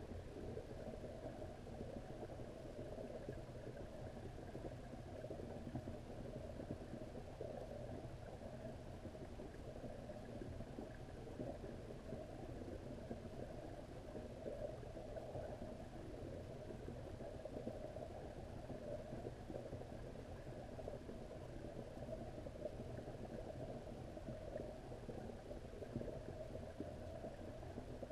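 Steady, muffled low rumble of pond water picked up by a camera submerged in a koi pond.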